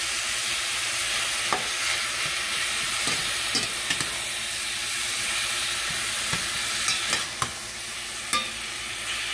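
Ground chuck sizzling steadily as it browns in a stainless steel pan with no oil added. A slotted metal spatula breaking up and turning the meat scrapes and clacks against the pan now and then.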